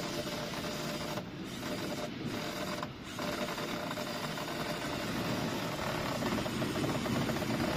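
A machine running steadily with a fast, even mechanical rattle.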